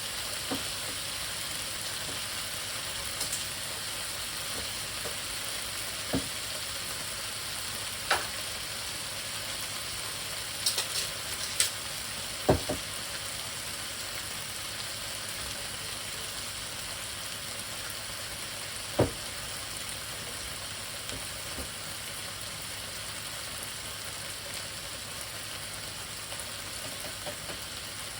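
Stir fry of cut-up bird, onion, wild rice and mixed vegetables sizzling steadily in a hot pan as its liquid is reduced, with a handful of sharp clicks scattered through, the loudest about twelve seconds in.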